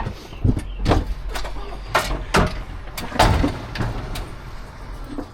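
A series of knocks and clunks, about six in five seconds, over a low steady hum.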